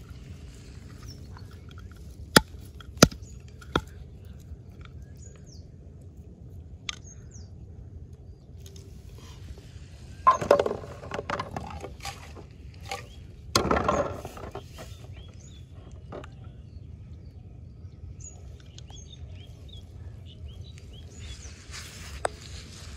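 A few sharp knocks in the first four seconds as a hand-held stone strikes a wooden board to crush bait. About halfway through come two short rustling bursts from hands handling things, and faint bird chirps sound now and then over a steady outdoor background.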